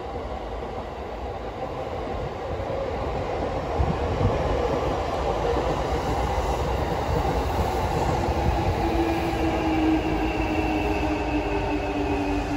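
Electric commuter train running along the station tracks: a steady rumble of wheels and motors that builds over the first few seconds. About nine seconds in, steady tones join the rumble, one high and one lower that drops in pitch near the end.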